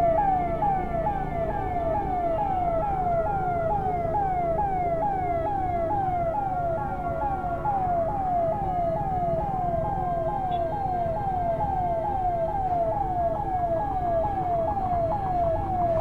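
Ambulance siren sounding a rapid, repeating falling sweep, about two and a half a second, to ask traffic to make way. Low traffic and engine rumble runs underneath.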